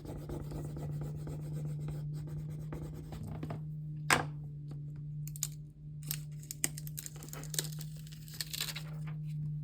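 Paper being scratched and rubbed at a tabletop, most likely a rub-on transfer being burnished onto a journal page, with a sharp click about four seconds in and denser scraping near the end. Underneath runs a steady low drone from a lawn mower next door.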